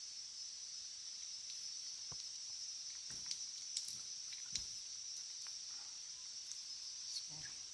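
Faint, scattered clicks and light knocks, a few seconds apart, over a steady high hiss.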